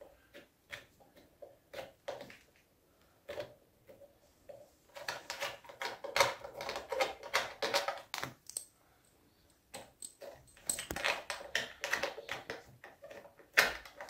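Hand handling noise from a sofa's detachable side arm being worked loose and its fittings pulled out: scattered small clicks at first, then bouts of scraping and rubbing in the middle and again near the end.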